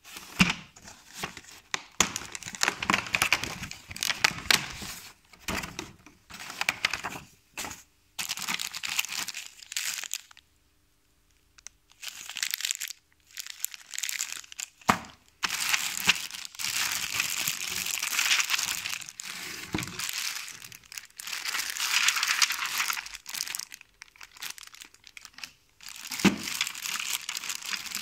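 Packaging crinkling and rustling in irregular bursts as a product is unpacked, with short pauses and a couple of sharp clicks.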